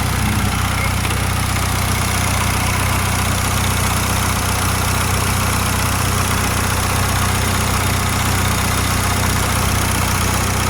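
Turbocharged Honda D16Z6 1.6-litre SOHC four-cylinder engine idling steadily, warmed up, while its ignition timing is checked.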